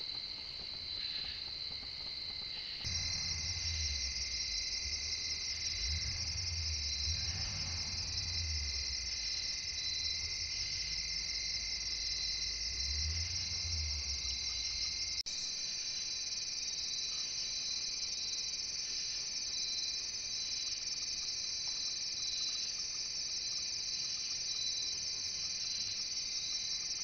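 Steady night chorus of crickets and other insects, several trilling at once at high pitch. The mix changes abruptly about three seconds in and again about halfway through, and a low rumble comes and goes in the first half.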